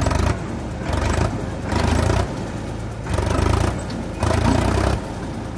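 Sonalika Sikandar DI 50 RX 52 hp tractor engine revved in about five repeated surges, roughly one a second, dropping back between them, as the loaded tractor struggles to pull free of deep mud.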